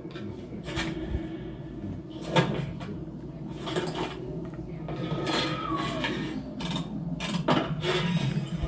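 Animated-film sound effects: a string of sharp clicks, clanks and knocks, with a short pitched whir about five seconds in, over a steady low hum.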